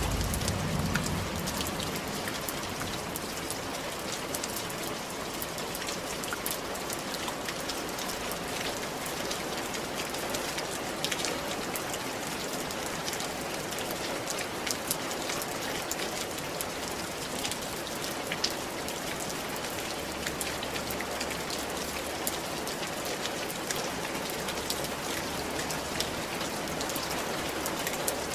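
Steady rain falling on a tiled roof: an even hiss with many single drops ticking against the tiles.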